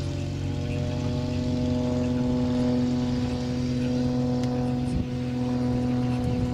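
Single-engine aerobatic propeller plane in flight: the engine and propeller give a steady, even-pitched drone that swells slightly about two seconds in.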